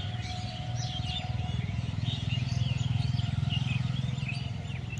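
Many birds chirping and calling in quick short notes over a low rumble that swells in the middle and fades again.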